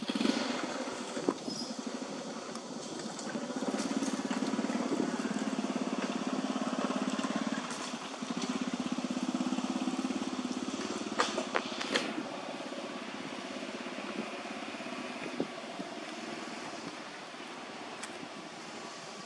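A small engine running steadily with an even low hum, loudest for several seconds in the middle and then fading back. A few sharp clicks come through later on.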